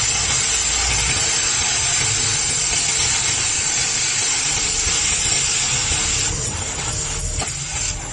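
Stick welding arc crackling and hissing steadily as the electrode burns; the hiss thins out about six and a half seconds in.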